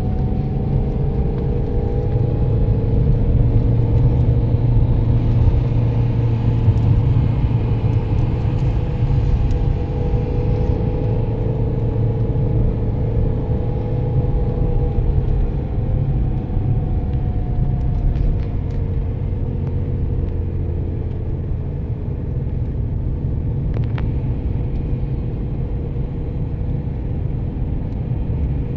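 A motor vehicle running: a steady low rumble with a droning engine tone that drifts slightly up and down in pitch.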